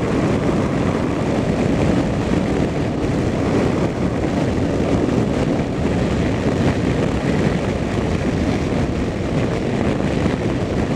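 Steady road and engine noise of a vehicle cruising along a highway.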